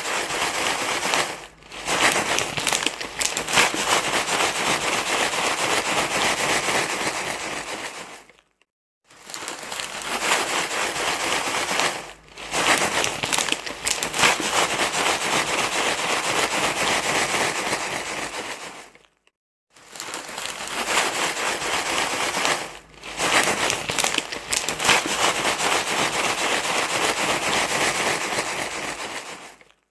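Dense rustling and crinkling, like something being crumpled. It comes in stretches of about eight seconds with a short dip a second or so into each and brief silences between them, the same stretch repeating in a loop.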